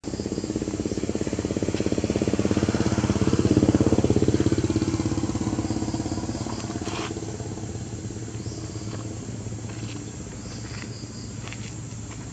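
A motor vehicle's engine running with a fine, even pulse, growing louder to a peak about four seconds in and then slowly fading as it passes by.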